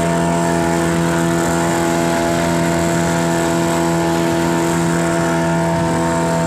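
A small fishing boat's motor running at a steady, unchanging pitch while under way, with water and wind rushing past the hull.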